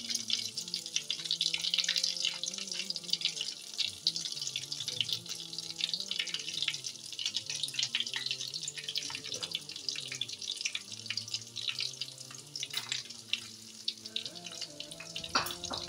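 Hot oil sizzling and crackling steadily as bread-coated potato tikkis, green chillies and egg shallow-fry in a pan.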